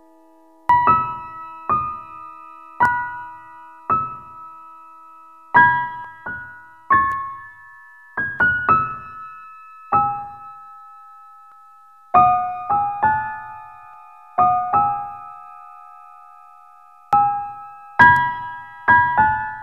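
Background music: a slow piano melody of single high notes, each struck and left to ring out, with a couple of longer pauses.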